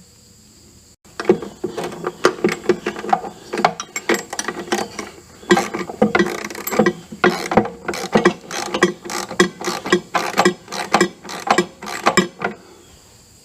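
Irregular metal clicks and clanks of a lawn tractor's spring-loaded mower-drive pulley assembly being wrestled into place by hand, starting about a second in.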